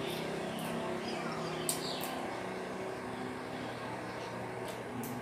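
Two sharp clicks of metal chopsticks and a spoon against a foil takeaway tray during a meal, about two seconds in, over a steady low background hum.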